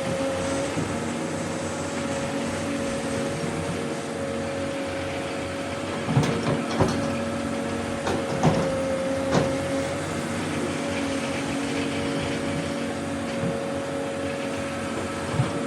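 Excavator running steadily with a held whine from its engine and hydraulics, broken by a few sharp knocks about six to nine seconds in and again near the end.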